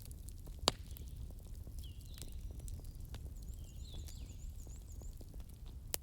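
Wood fire crackling over a low steady rumble, with small ticks throughout and two sharp pops, one about a second in and one near the end. Faint high chirping can be heard in between.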